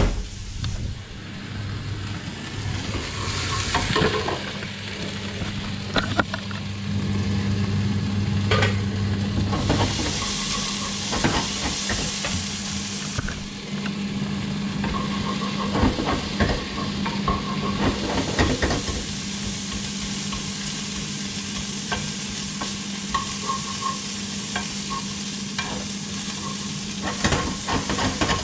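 Peanuts being stirred in a hot pan with a spatula: a continuous sizzle with irregular scrapes and knocks of the spatula against the pan.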